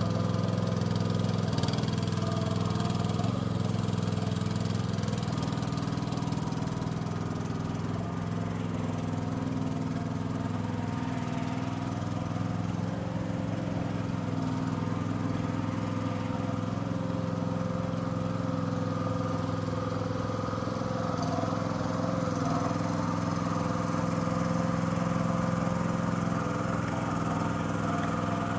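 Small engine of a FORT Alien HY 5.2 tracked mini dumper running steadily while the machine is driven.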